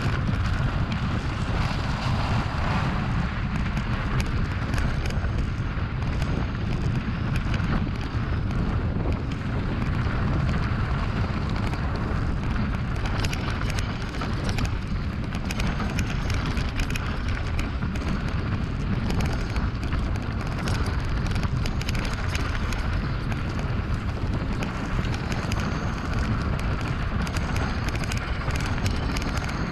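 Mountain bike ridden over rough ground: steady wind rumble on the action camera's microphone, with tyre noise and many short rattles and knocks from the bike.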